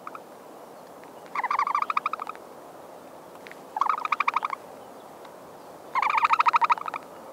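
Ostrich calls: three rapid rattling trills, each about a second long and evenly pulsed, a couple of seconds apart, over a steady background hiss.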